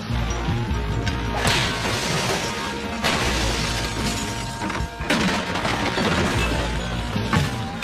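Dramatic score music under a series of loud crashes: glass smashing and goods breaking, four heavy impacts in all.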